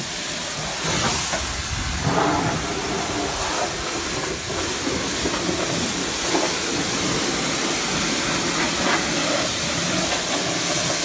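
Pressure washer spraying water onto a boat's fibreglass hull and twin-propeller stern drive: a steady hiss of spray that runs without a break.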